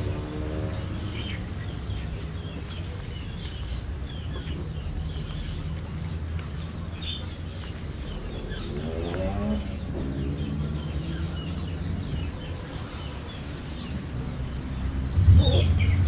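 Small birds chirping again and again over a steady low rumble. A drawn-out pitched sound rises about nine seconds in, and a louder low rumble starts near the end.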